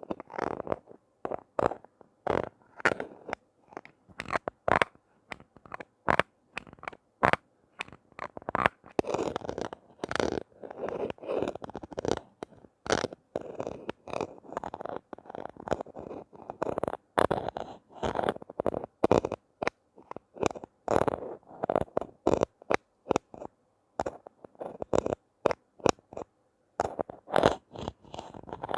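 Close-miked handling of toys and their packaging: crinkles, scratches and sharp taps in quick, irregular bursts with silent gaps between.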